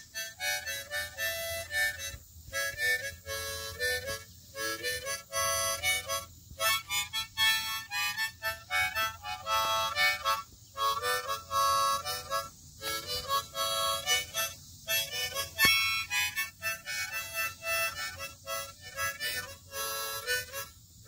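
A harmonica playing a tune, its phrases broken by short pauses every couple of seconds.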